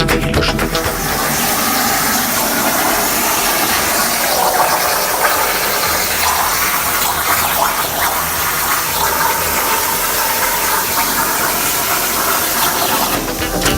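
Cutting torch on a CNC plasma-gas cutting table hissing steadily as it burns through sheet metal.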